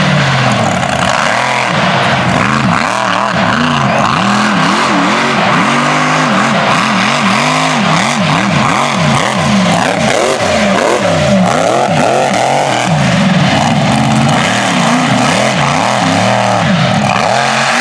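Mega truck's engine revved hard over and over, its pitch swinging up and down about once a second as the truck is driven through an obstacle course.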